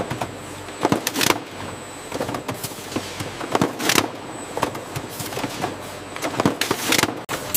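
Packaging-line machinery running: a steady mechanical hum and hiss with irregular clacks and knocks, a few louder ones about a second in, around four seconds in and near the end.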